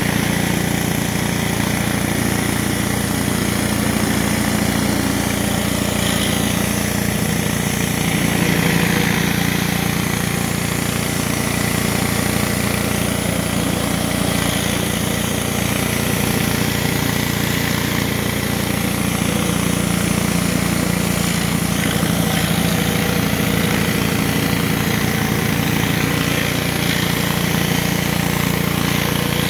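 Pressure washer's engine running steadily under load, with the hiss of water jets from an 18-inch RIDGID surface cleaner spraying across concrete.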